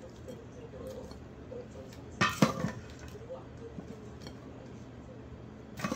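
Half-frozen red broth poured from a stainless steel cup into a ceramic bowl over vegetables, with a loud clatter of dishware about two seconds in and a shorter one near the end.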